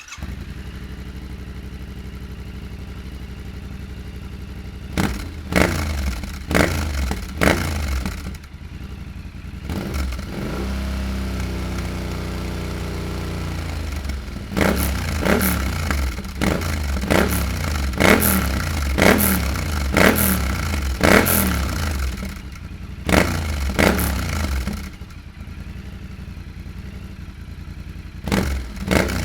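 Yamaha Ténéré 700's 689 cc parallel-twin idling and revved with repeated short throttle blips, the revs dropping back to idle after each. About ten seconds in, the engine is held at a steady raised rev for a few seconds before falling back to idle.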